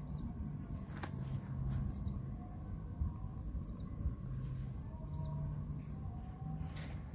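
A small bird repeating a short, high chirp about every two seconds, four times, over a low background rumble.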